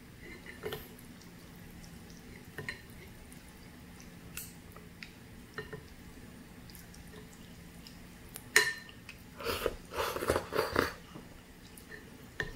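Chopsticks and a metal spoon clicking now and then against a glass bowl of noodle soup, with one sharp clink about eight and a half seconds in. Shortly after comes about a second and a half of noisy slurping of the noodles and broth.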